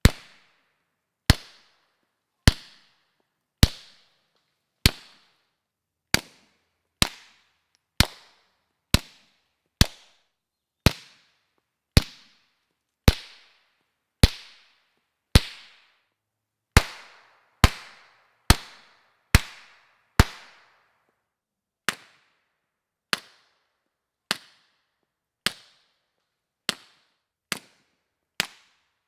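Suppressed 9mm shots from a full-size Smith & Wesson M&P 9mm pistol fired through short suppressors run wet: a steady string of about one shot a second, each a sharp crack with a short fading tail. The last seven shots, from about two-thirds of the way in, are noticeably quieter.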